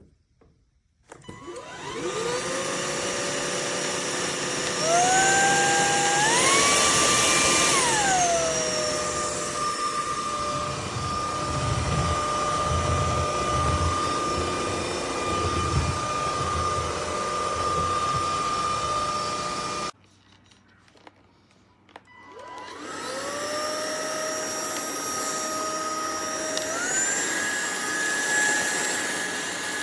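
UNINELL UV3 cordless stick vacuum running: its motor whine rises as it spins up, jumps higher twice as the power setting is raised, then drops back down. It switches off about two-thirds of the way in, then starts again, spins up and steps up once more.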